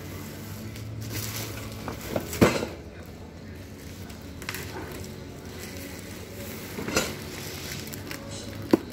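Black plastic bubble-wrap packaging being slit with a box cutter and handled, crinkling and rustling, with three sharp snaps, the loudest about two and a half seconds in.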